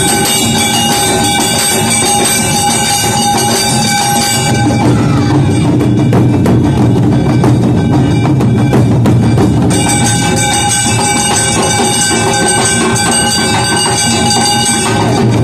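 Awa odori band playing: large barrel drums and small tight-headed drums beating fast and steady, with high, steady ringing tones over them. About five seconds in the ringing drops out and the drums play on alone, and about ten seconds in it returns.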